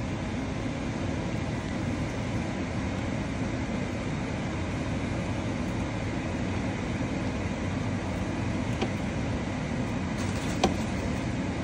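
Steady low rumbling kitchen noise while noodles cook in a steaming stainless pan on the stove, with a light click about nine seconds in and a sharper clack near the end as chopsticks and broccoli hit the pan.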